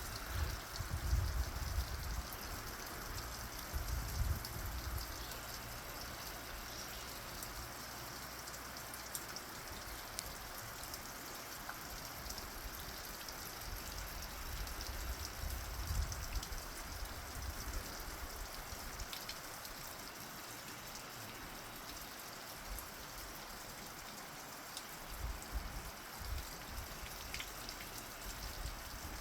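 Roadside waterfall dripping: a steady patter of many small water drops over a soft trickling rush, with low rumbles now and then near the start, in the middle and near the end.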